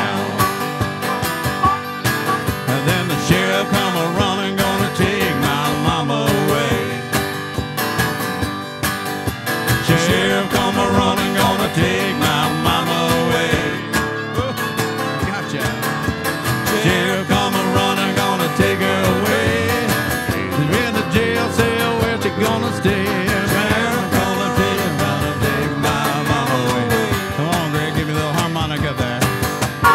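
Live acoustic band playing a country-folk tune: strummed acoustic guitar with harmonica lines over it.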